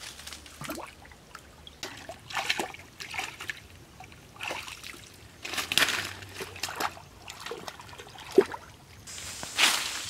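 Irregular splashes, sloshes and trickles of water as hands grope and scoop through a shallow muddy pool, with water dripping from a hand, and one sharper slap or knock about eight seconds in.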